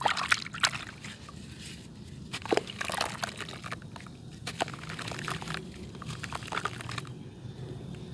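Dry red dirt clay being crumbled, crunching and crackling, with crumbs falling and trickling, in four bursts.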